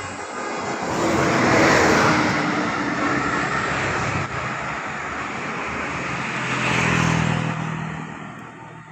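A bus driving past with engine and tyre noise. The noise swells about a second in, again around seven seconds, then fades near the end.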